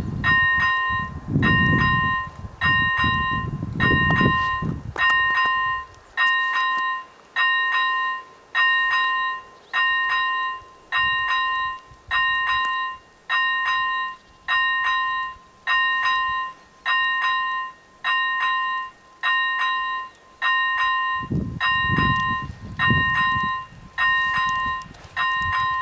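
AŽD 97 level-crossing warning bell ringing, a bright two-tone ding about once a second, sounding because a train is approaching the crossing.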